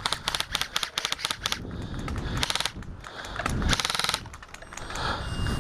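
Airsoft rifle firing in rapid full-auto bursts, a quick run of sharp clicking shots followed by two shorter bursts.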